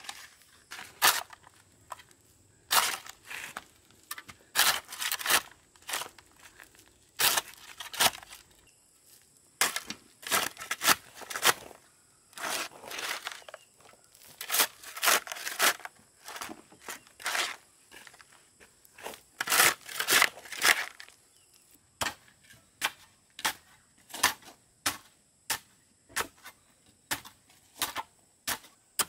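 Irregular sharp knocks and crunching scrapes from hand-tool work, some single and some in quick clusters of two to four. A longer run of crunching comes about two thirds of the way through.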